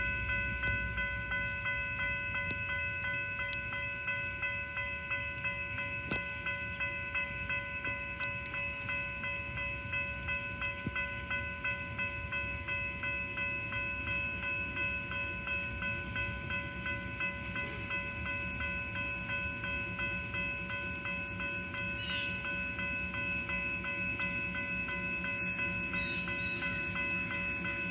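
A railroad warning bell rings steadily over the low rumble of a slowly approaching diesel locomotive, whose engine sound grows louder near the end.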